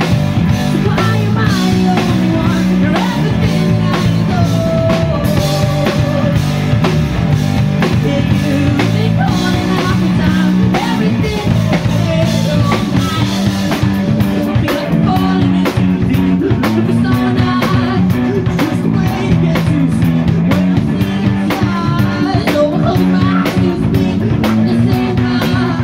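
Live rock band playing: a male lead singer over electric guitar, bass guitar and a drum kit keeping a steady beat.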